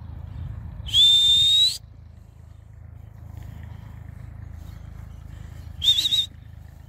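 A person whistling loudly to call dogs back. One held whistle about a second in rises slightly in pitch; a second, shorter, wavering whistle comes near the end. A low steady rumble runs underneath.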